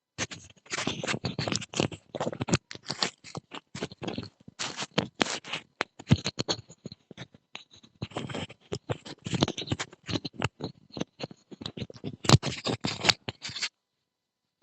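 Loud, dense scratching and rustling right at the microphone, in irregular bursts that stop about a second before the end.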